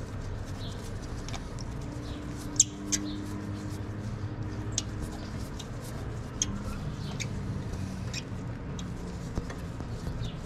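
Scattered light clicks and ticks over a steady low hum, while new spark plugs are started into the cylinder head by hand with a length of hose.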